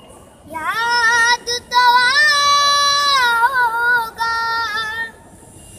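A young girl singing solo and unaccompanied: a drawn-out melodic phrase with a long held note in the middle, ending about five seconds in.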